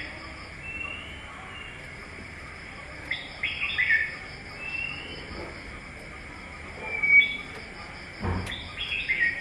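Birds chirping: short bursts of chirps recurring every few seconds, with a brief rising whistle between them. A single thump about eight seconds in.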